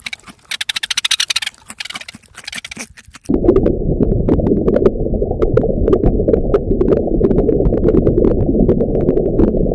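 Equine animal sounds: a few short calls made of rapid pulses, then from about three seconds in a dense low rumble of hooves galloping, with scattered clicks over it.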